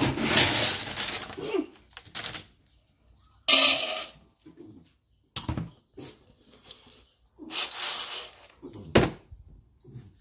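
Handling noises: scattered knocks, scrapes and rustles, ending with the lid of a plastic storage bin being opened and a sharp knock near the end.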